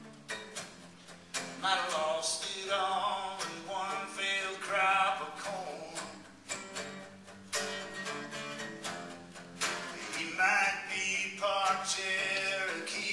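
A song sung to guitar accompaniment: the guitar plays alone for about the first second and a half, then the voice comes in.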